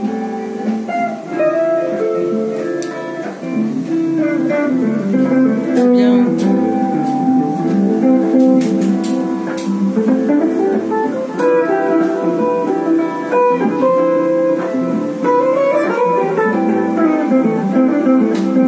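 Guitar music: plucked guitar notes and chords played in a continuous run.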